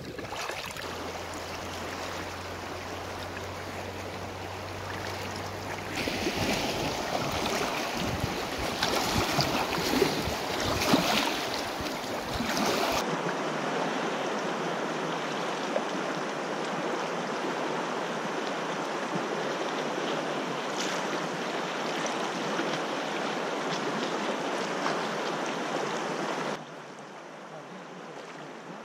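Fast-flowing water of the Bistrița river rushing steadily. At first it is heard from a canoe on the water, growing louder with a few surges about ten seconds in. After an abrupt change about halfway through it becomes an even rush of choppy current heard from the bank, dropping in level near the end.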